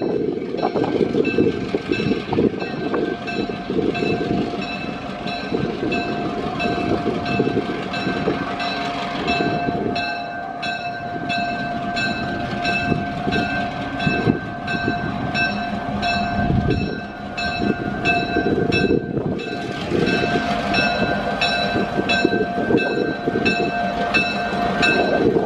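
Southern Pacific 5623 diesel locomotive rumbling as it rolls slowly in, with a bell dinging steadily about twice a second.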